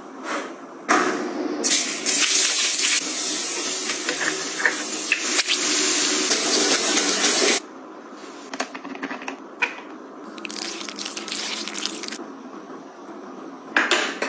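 Water running in a steady stream, loud for about six seconds and cut off abruptly, then running again more lightly for under two seconds, with a few small knocks in between.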